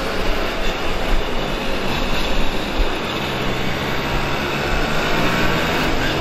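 Several Simson two-stroke moped engines running together as a group rides in a column, under a steady rushing noise of wind and motion.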